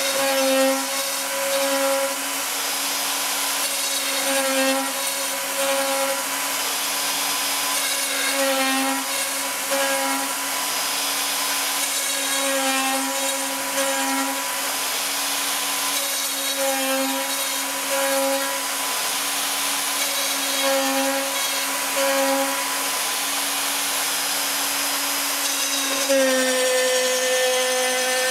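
Cybermation Autograph Multicutter 8000 CNC router running on its Granite Devices servo drives: a steady whine, with the axis motors' pitch rising and falling in a repeating pattern about every four seconds. The pitch steps up near the end.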